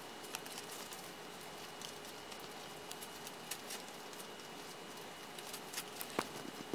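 Faint, irregular soft pattering and small clicks of an old small dog's paws on pee pads as it circles its playpen, the restless circling of canine dementia. A few sharper ticks come near the end.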